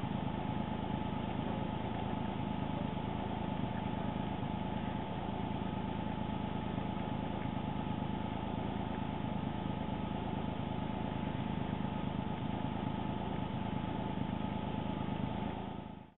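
Steady engine drone with a few constant tones, fading out at the very end.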